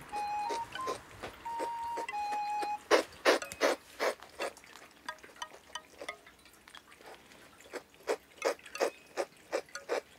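A cat licking a tatami mat: a run of short wet tongue clicks, about three a second, starting about three seconds in and fading briefly in the middle before picking up again. Before the licking, a few soft, held music notes sound.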